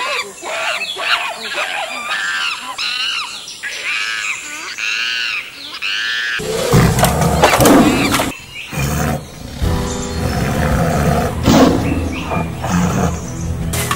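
Monkeys calling in a rapid series of short, high, arching calls. About six seconds in they give way to a tiger roaring and growling, louder and much lower, over music.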